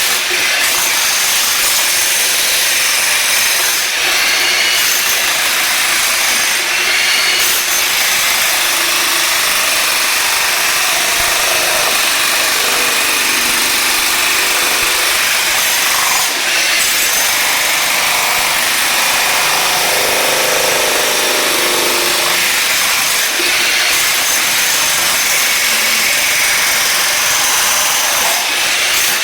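Electric jackhammer hammering continuously as it chips up glued-down wood flooring and the tile underneath, with a few brief dips in the noise.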